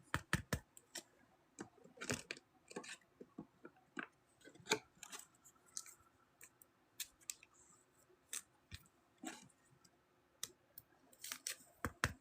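Trading cards and foil pack wrappers being handled: irregular soft crinkles, rustles and clicks.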